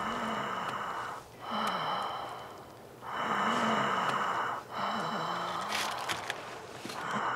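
A person breathing heavily: several long, ragged breaths, each a second or more, with a low wavering voiced tone in them.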